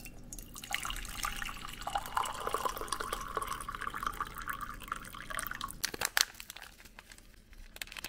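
Water poured in a steady stream into a ceramic mug, stopping about six seconds in, followed by a couple of sharp knocks.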